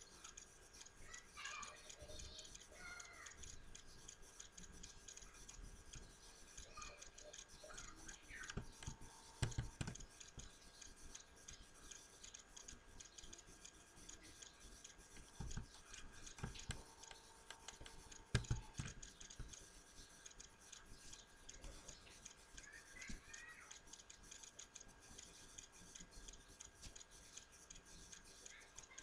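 Near silence: quiet room tone with a faint steady hum and a few scattered soft clicks.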